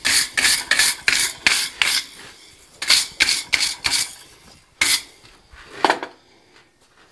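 Wire brush scrubbing scale off a red-hot twisted iron bar in a vise: quick rasping strokes about three a second, thinning out and stopping about six seconds in.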